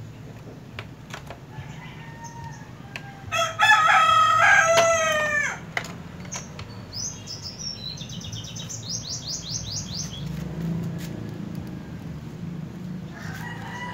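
A rooster crows once, loud and drawn out, a few seconds in. A quick run of high chirps follows, and a few light clicks are heard.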